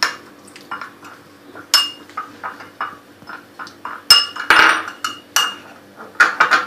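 Spoon stirring a spice paste in a small glass bowl, clinking and scraping against the glass many times, with a louder run of clinks about four seconds in.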